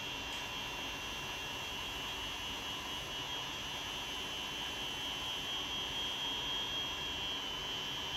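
Double-face fabric splitting machine (Foggiato Double Cut DC 70) running with a steady high whine while it parts the two layers of a double-face cashmere.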